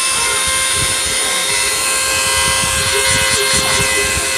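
CNC router spindle with a small engraving bit milling the copper layer of a printed circuit board: a steady motor whine with several held tones over a hiss of cutting.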